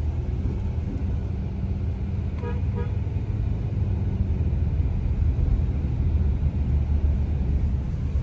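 Steady low rumble of a car on the road, with two short car-horn toots about two and a half seconds in.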